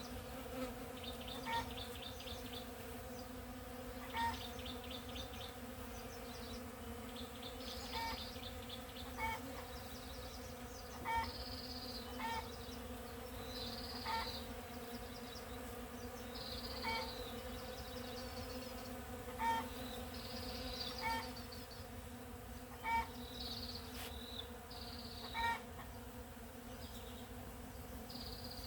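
Bees buzzing steadily in a coffee bush in bloom, a continuous low hum. A bird gives short calls every second or two over it, some with a higher chirp.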